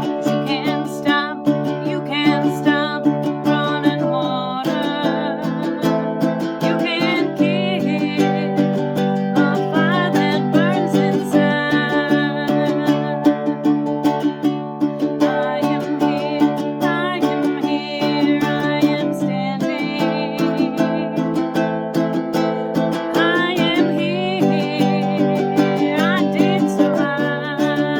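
Music played on a plucked string instrument: steadily picked chords that change every few seconds.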